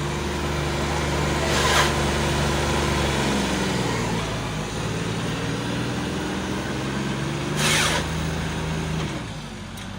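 Motor vehicle engine running steadily, its note shifting about three seconds in, with two brief rushing noise bursts near two and eight seconds.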